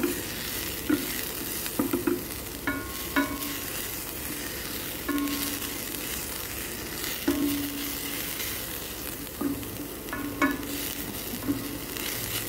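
Chopped onion and garlic sizzling steadily in oil in a stainless steel frying pan, stirred with a wooden spatula. The spatula scrapes against the pan in short, irregular strokes, several of them with a brief squeak.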